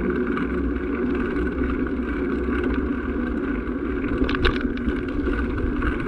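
A small vehicle engine running steadily as it rolls along at low speed, with a brief rattle about four seconds in.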